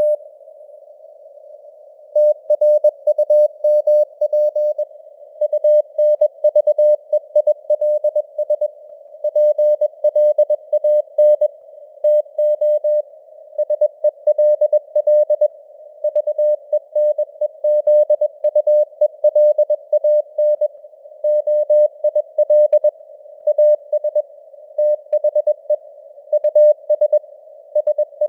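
Computer-generated Morse code at 21 words per minute: a single steady-pitched beep keyed on and off in dots and dashes, spelling out news headlines. It sits in simulated receiver hiss with fading signal strength (QSB), like a CW signal on a shortwave radio. The keying pauses for about two seconds just after the start, then runs on.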